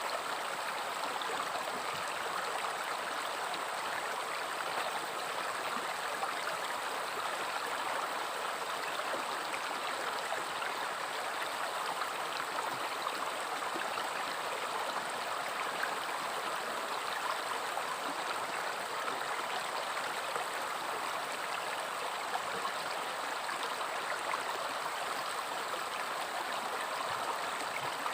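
A river flowing steadily over stones, a continuous rushing and babbling with no pauses or single splashes.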